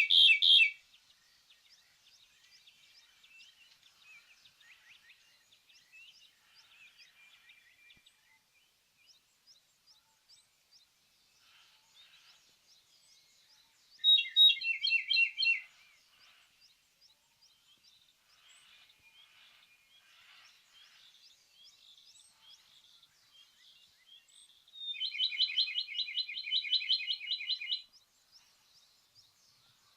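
Ryukyu robin singing: a short phrase at the start, another about fourteen seconds in, and a longer rapid trilled phrase near the end, with faint chirps between the phrases.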